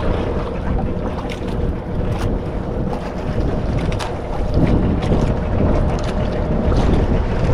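Wind buffeting the microphone aboard a small outrigger fishing boat on open sea, with the sound of the water around the hull and a faint steady hum underneath, broken by a few short clicks.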